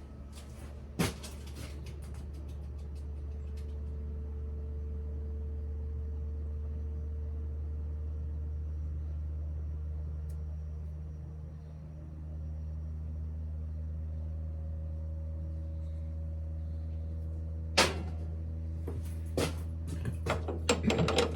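Smithy lathe running with a steady motor hum. Sharp metallic clicks and knocks come about a second in and again in a cluster over the last few seconds.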